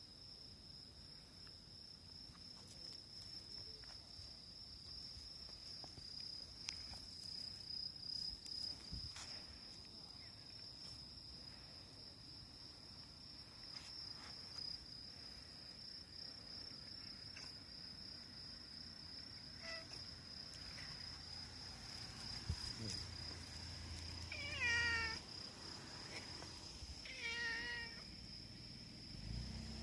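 Stray cat meowing twice near the end, each a short falling call. A steady high-pitched insect trill runs underneath throughout.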